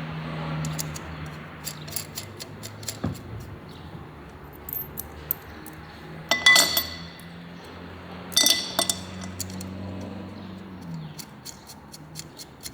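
Small metal parts and tools clinking and tapping while being handled, with two louder rattling clinks in the middle, over a low steady hum that stops near the end.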